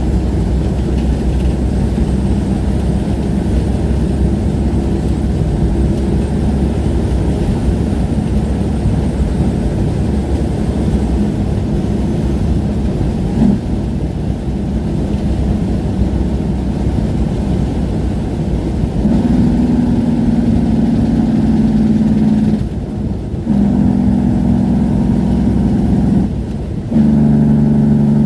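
Diesel semi-truck engine running with the engine brake holding it back on a long downhill grade. From about two-thirds of the way in it takes on a louder, steady pitched note, broken twice by short dips in level.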